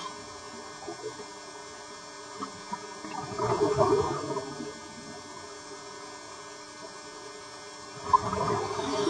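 Scuba diver breathing through a regulator underwater: two breaths about five seconds apart, each a rush of sound lasting a second or so, over a steady low hiss.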